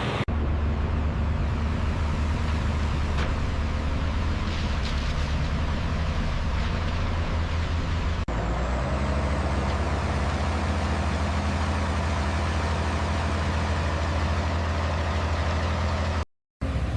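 Steady low rumble of a heavy vehicle's engine running, with abrupt changes just after the start and about 8 seconds in, and a brief cut to silence near the end.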